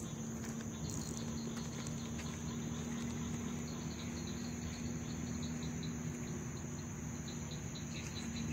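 Crickets and other night insects chirring steadily: a high constant drone with a faint pulsing chirp over it, above a steady low hum.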